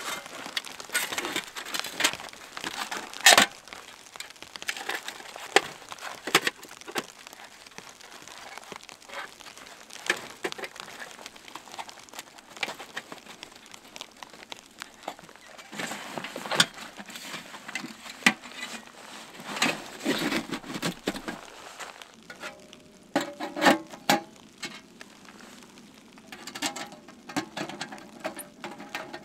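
Titanium folding wood stove being taken out of its nylon carry bag and assembled by hand: rustling of the bag and a string of clinks and knocks of thin metal panels, the sharpest about three seconds in, with brief metallic ringing near the end.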